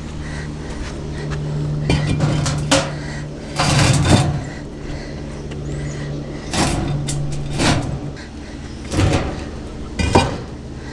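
Concrete blocks being shifted and set in place by hand: several short gritty scrapes and knocks of block on block, over a steady low hum.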